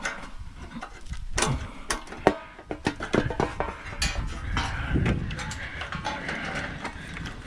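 Irregular knocking, clicking and scraping of stove parts as a piece is pulled through the kitchen range's sheet-metal housing during teardown.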